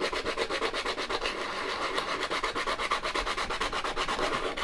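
A dried avocado stone rubbed back and forth over a sheet of coarse sandpaper, a gritty hiss in rapid, even strokes as the stone is sanded smooth.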